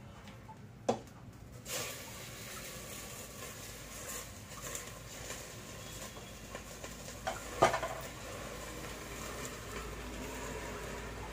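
Leaves being dropped and pressed into a steel pressure cooker: a low rustling, with two sharp knocks against the metal pot, about a second in and a louder one about two-thirds of the way through.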